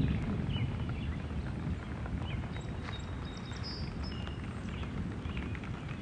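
Distant thunder rolling as a low, steady rumble that eases a little at the start, with a few faint high chirps over it.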